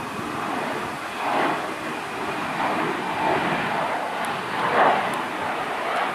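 Embraer E190 regional jet's twin turbofan engines at climb power just after takeoff: a steady rushing jet noise that swells and eases a few times.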